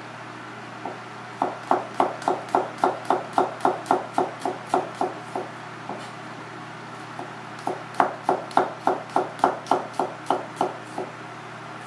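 Chef's knife slicing garlic cloves on a cutting board: two runs of quick, even knocks of the blade on the board, about three or four a second, with a pause of about two seconds between the runs.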